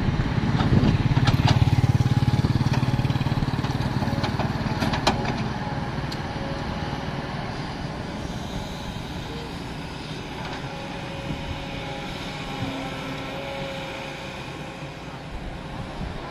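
Kobelco SK200 hydraulic excavator's diesel engine running under load as it digs, loud for the first few seconds and then easing to a lower steady drone. A few sharp knocks stand out near the start and about five seconds in.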